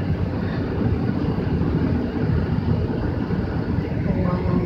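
Steady rumble of road and wind noise from a moving car, heard from inside the cabin.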